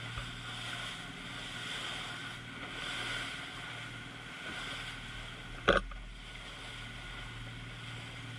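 Fishing boat's motor running steadily under a hiss of wind and water. About two-thirds of the way through there is a sharp double knock.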